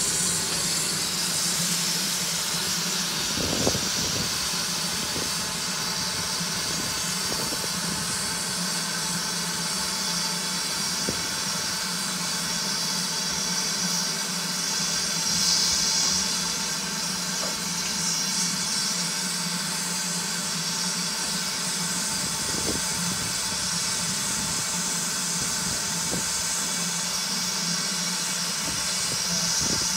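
LMS Ivatt Class 2MT 2-6-0 steam locomotive standing in steam, hissing steadily, the hiss swelling briefly about halfway through, over a steady low hum with a few faint knocks.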